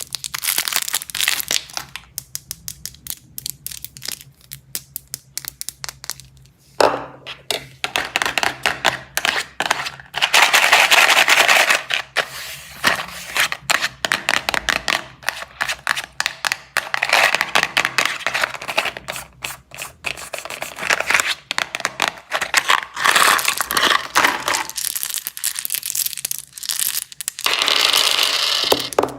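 Plastic candy wrappers being crinkled and torn open, with many small sharp clicks between bouts of crackling.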